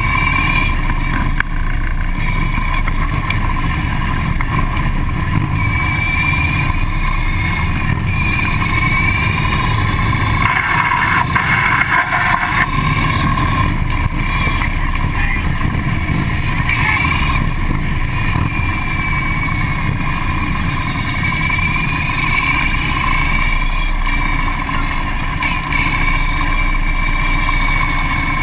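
Several Harley-Davidson police motorcycles' V-twin engines running at low riding speed in a group. They are heard from a camera mounted on one of the bikes, as a steady, loud rumble mixed with wind, briefly louder about 11 seconds in.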